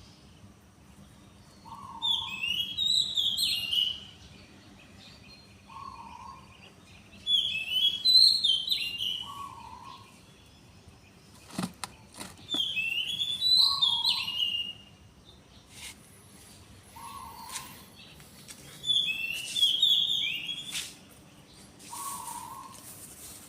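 Songbirds singing: one bird repeats a quick, whistled phrase four times, about every five seconds, while a lower short note sounds every three to four seconds. A few sharp clicks come about halfway through.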